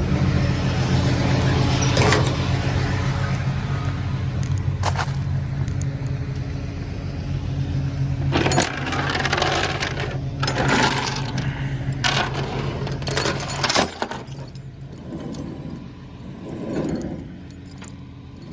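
Tow chains clinking and rattling as they are handled, over a steady engine hum from the idling tow truck; the hum drops away about fourteen seconds in, leaving a few quieter clinks.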